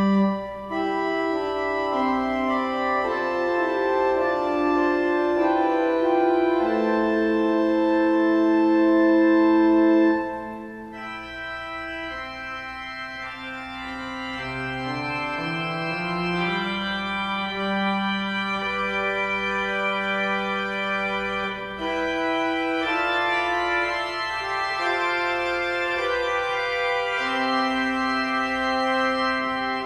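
Pipe organ playing slow, sustained chords that shift every second or two. It drops to a softer passage about a third of the way in and swells back up about two-thirds of the way through.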